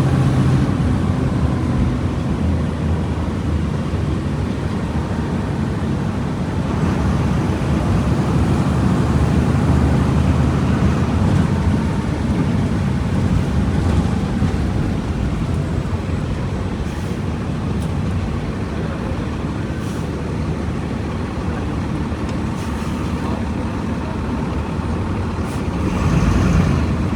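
Volkswagen Volksbus 17.230 EOD bus's diesel engine running steadily with a low drone, growing louder near the end.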